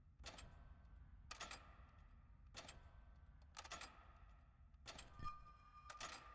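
Faint, sharp clicks repeating evenly about once a second, each a quick cluster of two or three clicks, like a ticking sound effect. A faint steady high tone comes in near the end.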